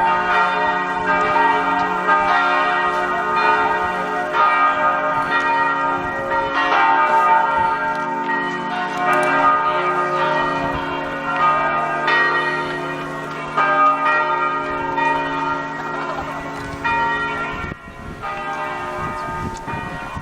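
Church bells pealing: several bells struck over and over, about once a second, their ringing tones overlapping into one continuous peal, which thins slightly near the end.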